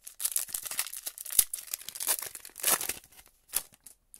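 Foil wrapper of an Upper Deck hockey card pack being torn open and crinkled by hand, with one sharp crack about a second and a half in. The crinkling dies away near the end.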